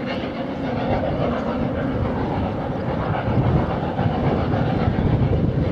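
Snowdon Mountain Railway rack steam locomotive No. 2 'Enid', an 0-4-2 tank engine, working uphill while pushing its coach: a steady low rumble that grows a little stronger about halfway through.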